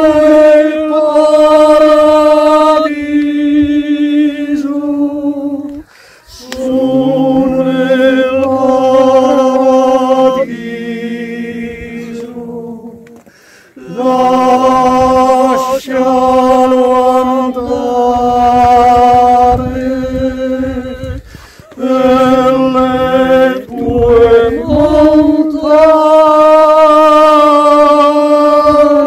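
A group of voices singing a cappella in slow phrases of long held notes, with short pauses between phrases.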